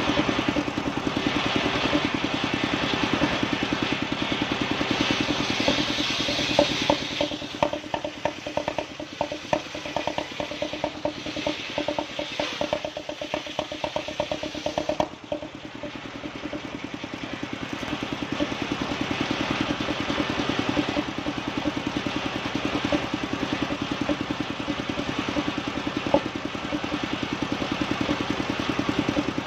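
Large engine-driven circular saw blade ripping lengthwise through a log of bayur wood, the engine running steadily with a rapid beat under the hiss of the cut. The cutting hiss is loudest in the first several seconds, gives way to a rapid ticking for a while, dips briefly about halfway, then carries on steadily.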